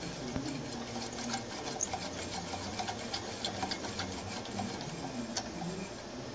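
Heavy-duty air-variable tuning capacitor being turned through its worm-drive gear: a steady run of small mechanical ticks and rubbing as the rotor plates swing.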